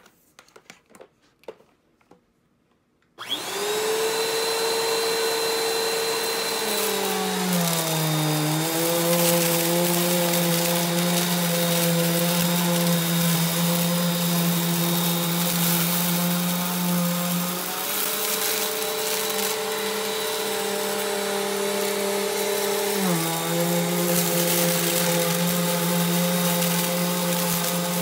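A few faint clicks, then about three seconds in a Bissell compact upright vacuum cleaner switches on and runs with a steady motor whine. Its pitch drops twice and comes back up once, and the crunch of dirt being sucked up from the shag carpet runs under it.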